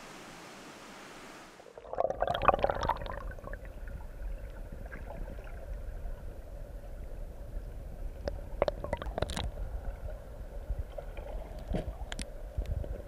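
Rushing water of a clear, stony mountain stream: first a steady rush, then, about two seconds in, the muffled underwater rumble and gurgling of the current over the streambed, with scattered sharp clicks.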